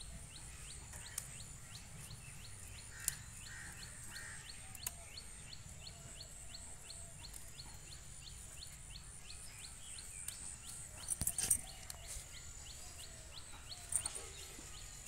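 Faint outdoor garden ambience: a short, high chirp repeats evenly about three times a second over a steady high whine. A few soft clicks and leaf rustles come from chillies being picked off a small chilli plant, a little louder about eleven seconds in.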